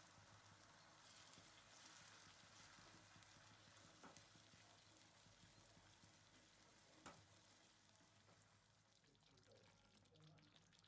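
Near silence, with a faint, even sizzle of food frying and two soft clicks, about four and seven seconds in.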